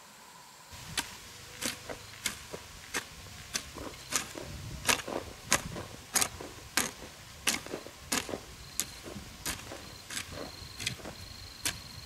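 Repeated sharp knocks at an even pace, about three every two seconds, with lighter knocks between them, starting about a second in.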